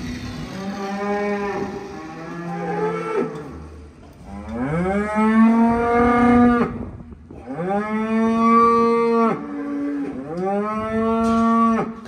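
Dairy cow mooing: a fainter call in the first few seconds, then three long, loud moos, each rising in pitch at the start and then held.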